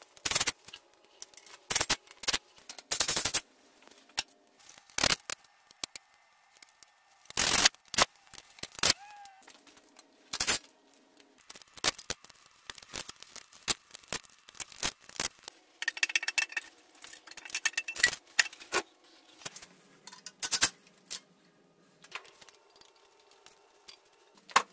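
Hand ratchet and socket extension clicking in short runs, with sharp metal knocks and clinks of tool on cast iron, while the manifold bolts of a Chrysler Slant Six engine are loosened. The loudest are single knocks, and there is a quick run of ratchet clicks about two-thirds of the way in.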